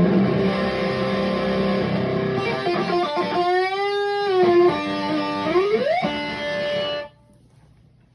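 Guitar music with sustained notes, one note bent around the middle and a rising slide about six seconds in. It stops abruptly about seven seconds in.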